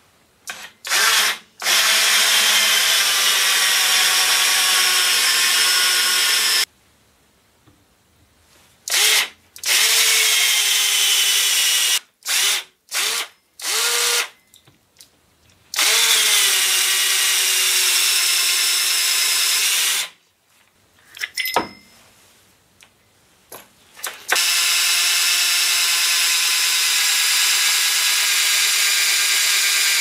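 Black & Decker Matrix 20-volt cordless drill turning a 1¾-inch hole saw, run in four bursts of a few seconds each with short trigger blips between them. The motor's pitch sinks a little as each run starts. There is one sharp knock a little past two-thirds of the way through.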